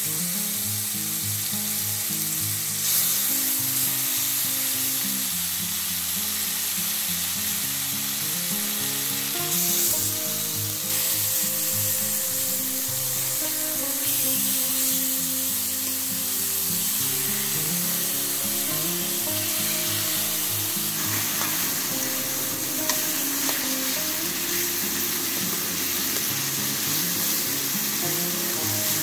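Chicken breast steaks frying in a little olive oil in a pan, a steady sizzling hiss.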